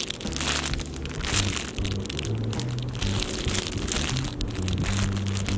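Clear plastic bag crinkling irregularly as a soft foam squishy sealed inside it is squeezed and turned in the hands, over background music.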